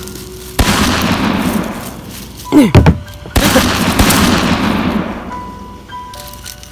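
Two gunshot sound effects, each a sudden bang with a long echoing tail, about half a second in and again about three and a half seconds in, with a short voice cry falling in pitch between them.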